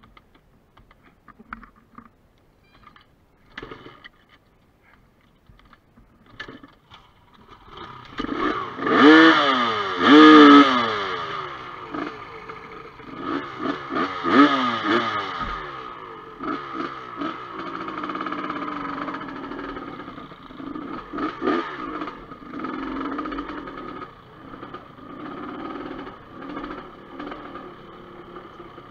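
Off-road dirt bike engines: after a few scattered clicks and knocks, engines rev hard in rising bursts about nine and ten seconds in and again around fourteen seconds as the bikes pull away on loose rock, then a dirt bike runs on with uneven throttle surges as it rides over the stony trail.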